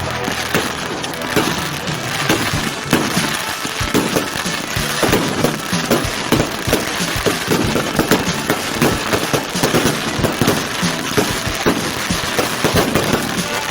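Fireworks display: a dense, irregular barrage of bangs and crackles going off in quick succession.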